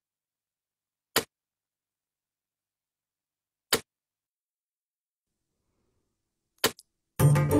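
Dead silence broken by single short, sharp clicks about two and a half seconds apart, a quick double click, then music starting near the end.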